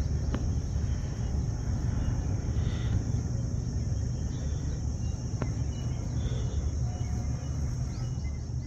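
Steady, high-pitched insect buzz over a low background rumble, with a faint click about five seconds in.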